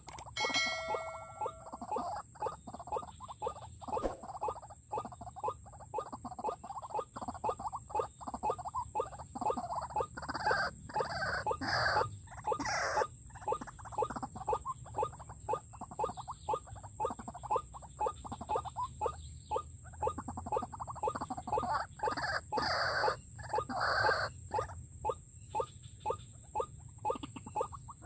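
White-breasted waterhen calls repeated rapidly and without a break, with louder bouts about ten seconds in and again a little past twenty seconds.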